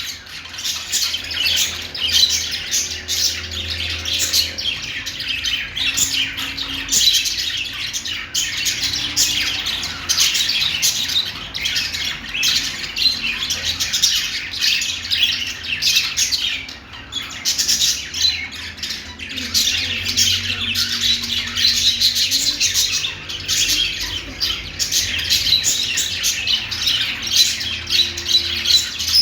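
Budgerigars chirping and warbling without pause: a dense, high-pitched chatter of many short notes.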